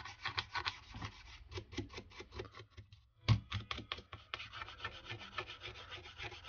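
Scraping and rubbing of hand work on a smartphone under repair, with a dense run of quick ticks and taps and one sharper click about halfway through, then steadier rubbing.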